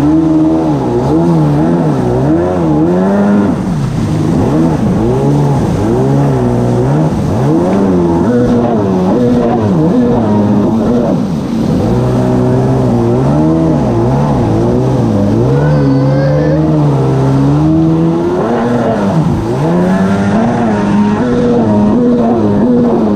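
Stand-up jet ski engine running at speed, its pitch rising and falling over and over as the throttle and load change while the craft crosses wakes, with water rushing and spraying.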